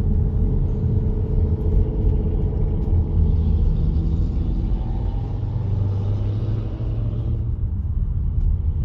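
Loud car engines rumbling in slow, congested traffic, with one engine note rising and swelling around the middle.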